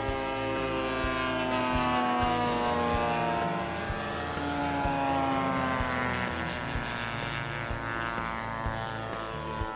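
Engine and propeller of a radio-controlled model airplane droning overhead in flight, its pitch sliding slowly as it flies past.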